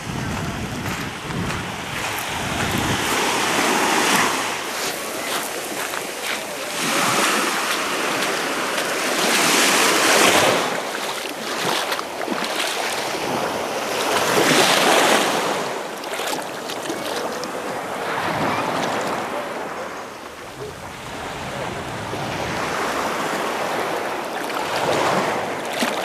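Small sea waves breaking and washing over a pebbly shore, swelling and fading every few seconds.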